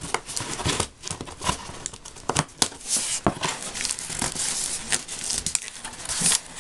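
Cardboard record mailer being opened by hand: packing tape pulled loose and stiff cardboard flaps scraping and crinkling, with many sharp clicks and louder rustles about three seconds in and near the end.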